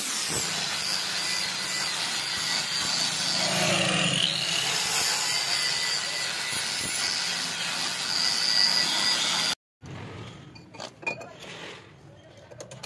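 Angle grinder cutting into a steel bicycle sprocket: a steady high whine and hiss, the pitch dipping under load about four seconds in. It cuts off abruptly near the end, followed by a few faint metal clinks.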